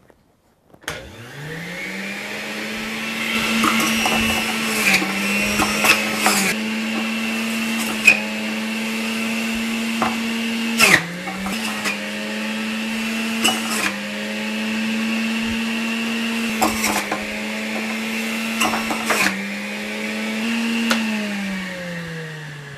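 Electric juicer motor starting up with a rising whine, then running steadily, a little loud, while pieces of pear and apple are pushed down the chute. Each piece briefly drags the motor's pitch down with grinding and sharp knocks. Near the end the motor winds down with a falling pitch.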